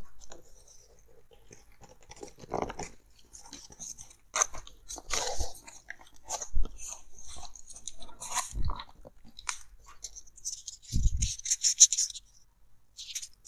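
Headphone packaging handled close to the microphone: scattered crinkles, taps and scrapes of cardboard and plastic, with a dense stretch of rapid crinkling and a low thump about eleven seconds in.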